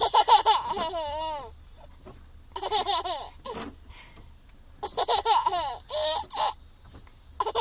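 A young child with hiccups laughing hard, in three bouts of high, wavering giggles with short pauses between them.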